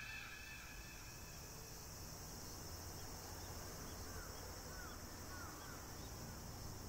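Faint outdoor ambience with a low steady hum and a few short bird chirps about four to five and a half seconds in.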